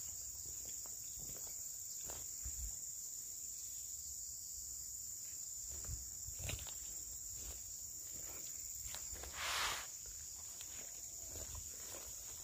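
Steady high-pitched drone of insects, with footsteps through grass and undergrowth. A brief louder rustle comes about nine and a half seconds in.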